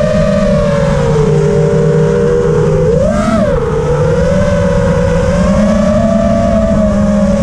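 AstroX X5 FPV racing quadcopter's brushless motors and propellers whining as it flies, several close tones shifting in pitch together with the throttle, with a quick rise and fall about three seconds in.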